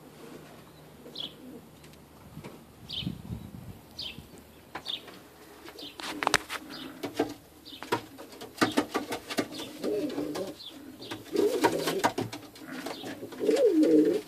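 Pouter pigeons cooing in wavering low calls that start about ten seconds in and grow loudest near the end, with wing flapping and rustling as a pigeon is handled on its perch. Through the first half a short high chirp repeats about once a second.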